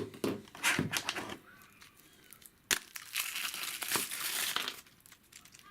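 Handling noise from opening a foil-wrapped chocolate surprise egg: several sharp cracks and snaps in the first few seconds, then a stretch of foil crinkling about three seconds in.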